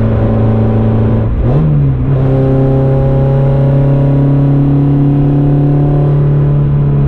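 Modified Peugeot 106 Quicksilver's engine pulling hard under load, heard from inside the cabin. About one and a half seconds in the revs flick up briefly during a gear change, then settle at a higher note and climb slowly.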